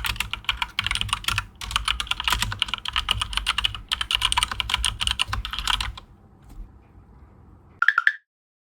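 Fast typing on a mechanical keyboard fitted with Mario keycaps, a dense run of key clicks with two brief pauses, stopping about six seconds in. Near the end, a short loud pitched blip.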